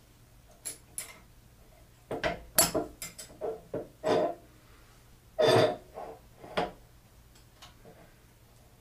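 Metal machine parts and hand tools being handled: a series of irregular clinks and knocks with a few short scrapes, the loudest a brief scrape about five and a half seconds in.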